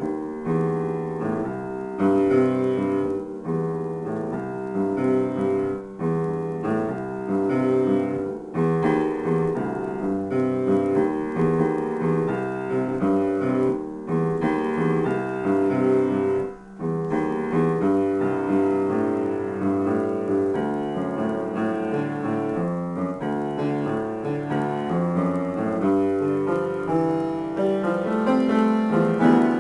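Grand piano playing a dense improvisation, many notes sounding together without a pause, except for a brief break just past halfway.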